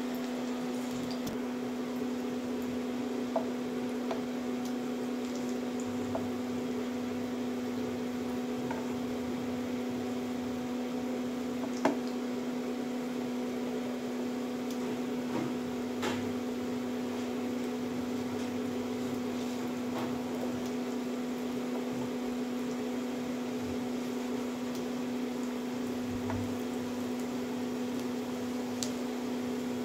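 Steady electrical hum of a Philips induction cooktop running, over a low sizzle of bread pakoras frying in oil in a kadhai. A few light clicks of a spatula against the pan, the loudest about twelve seconds in.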